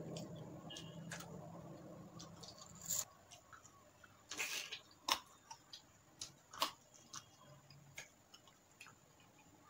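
Close-miked eating with the fingers: rice being worked by hand, then a bite into a piece of cooked chicken. Sharp wet mouth clicks and lip smacks come every second or so, the biggest about four and a half seconds in.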